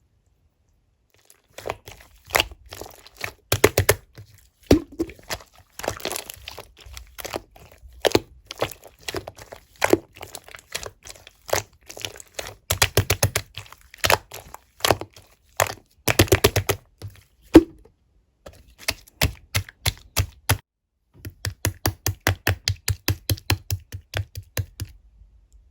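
Clear slime being squeezed and pressed by hand, giving off sharp clicks and wet pops. Near the end it turns into a quick, even run of about four pops a second.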